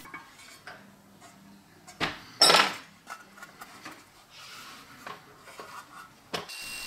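Metal parts of an antique butter churn's cast gear head and lid being handled on a workbench: small clinks and taps, with one louder metallic clatter about two and a half seconds in.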